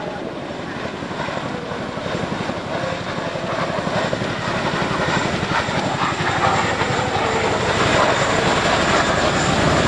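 Boeing CH-47 Chinook twin-rotor helicopter in flight, its rotor chop and turbine noise growing steadily louder.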